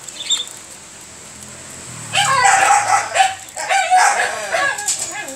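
Puppies whining and yelping in two high-pitched bursts, each a bit over a second long, starting about two seconds in.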